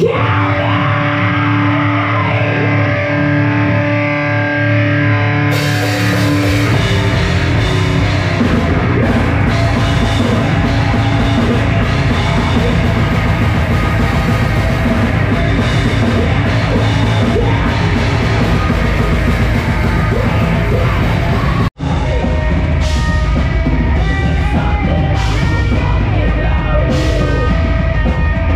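Heavy metal band music: a held, ringing chord over bass for the first few seconds, then the full band with drums comes in about five seconds in. The sound cuts out for an instant about 22 seconds in, then the music carries on.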